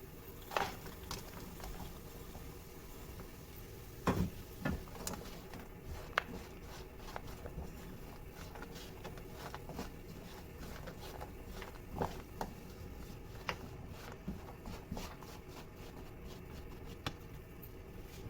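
Light taps, clicks and scrapes of kitchen work by hand over a steady background hum. The taps are scattered, the loudest a few seconds in, and a quicker run of small clicks comes in the second half.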